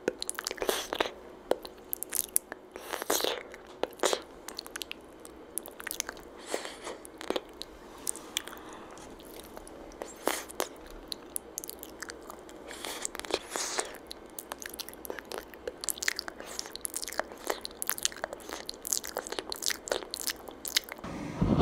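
Close-miked mouth sounds: irregular wet lip smacks and tongue clicks, many small sharp snaps.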